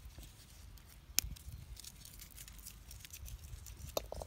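Dry crackling and rustling of dried red chillies and a thin plastic bag being handled by hand, with a sharp click about a second in and another near the end.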